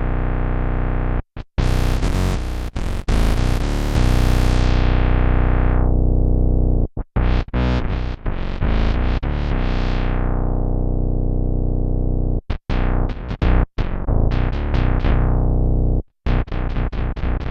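Electric bass played through a Dunlop MXR MB301 Bass Synth pedal: a deep, synth-like bass tone. Held notes alternate with quick choppy runs, and twice the tone turns bright and then slowly darkens again.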